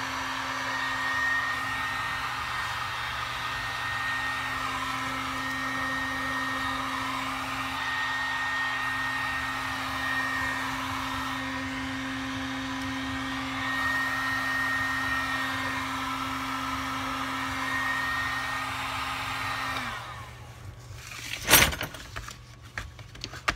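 Electric heat gun blowing steadily at a gearbox casing to heat a seized bearing free. It switches off about twenty seconds in. A sharp knock comes a moment later, the loudest sound, followed by a few small clicks.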